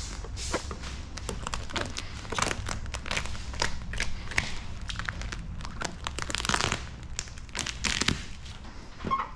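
Clear PremiumShield NextGen paint protection film crinkling and crackling in a dense string of sharp crackles as the excess film is handled and trimmed away.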